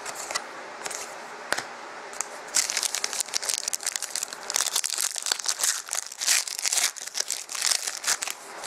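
Foil wrapper of a Panini Contenders hockey card pack being torn open and crinkled. A few light clicks come first; then, from about two and a half seconds in, there is dense, irregular crinkling that dies away near the end.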